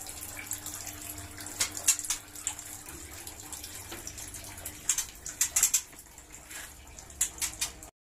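Water jet spraying inside a wire-mesh aviary as a cooling and damping spray: a steady hiss broken by irregular sharp splashes and spatters.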